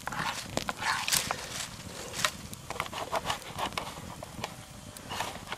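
Birds chirping in bushland over the small, irregular crackles and clicks of a campfire.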